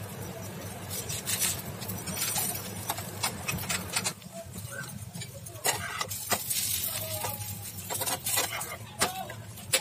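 A metal spatula scraping and knocking against a nonstick frying pan as a bread omelette is worked and flipped, with a steady sizzle of frying underneath.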